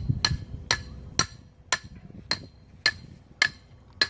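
Hammer driving a steel mooring pin into the ground: about eight even metal-on-metal strikes, roughly two a second, each with a short ring.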